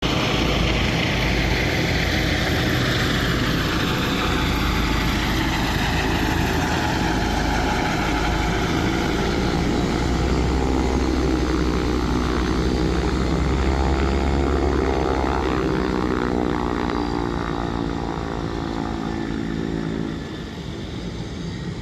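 Propeller airplane engine running steadily, its tone sliding downward early on, then rising and falling again midway, and getting a little quieter near the end.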